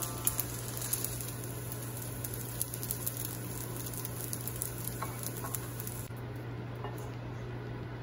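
Kimchi fried rice sizzling in a stainless steel frying pan, with scattered light scrapes and taps of a metal slotted spatula as the rice is scooped out of the pan.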